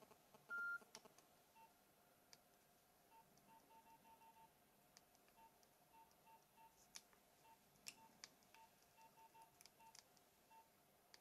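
Near silence, broken about half a second in by one short, steady electronic beep from a mobile phone, of the kind its keypad gives. Very faint short blips at one pitch and a few faint clicks follow.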